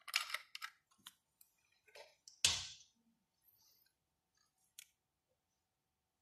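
Small plastic clicks and handling noises as the battery compartment cover of an infrared thermometer is opened and AA batteries are handled, with one sharper snap about two and a half seconds in.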